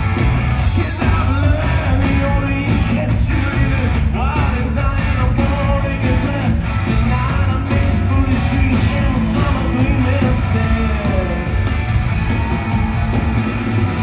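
Rock band playing live: a singer's voice over electric guitars, bass and drums, loud and continuous.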